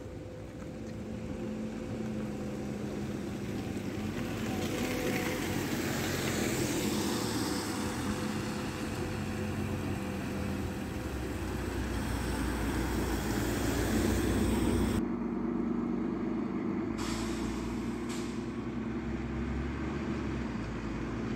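Articulated city bus driving past: its engine drones, and tyre hiss on the wet road swells as the bus draws near. About fifteen seconds in, the sound changes abruptly and a bus engine drones on as a bus approaches.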